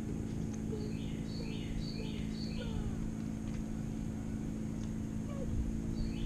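A songbird singing a quick high phrase of two or three notes, repeated about four times in a row, then starting again near the end, over a steady low hum.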